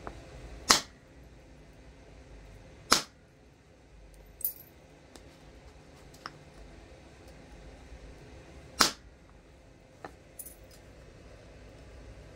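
Antler punch struck against a flint preform in indirect-percussion knapping: three sharp cracks, the first under a second in, the next about two seconds later and the last after a pause of about six seconds. Fainter clicks and ticks of stone and tool fall between them.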